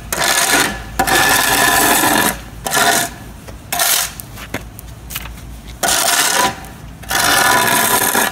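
Shovel blade scraping along the edges of a fresh asphalt patch, cleaning them up in a series of strokes, a few of them over a second long and some brief, with short pauses between.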